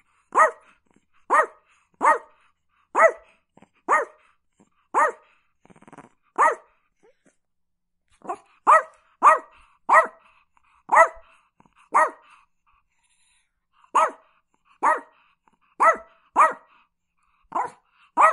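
Chihuahua barking: a string of short, sharp barks, about one every half-second to second, with a pause of about two seconds partway through.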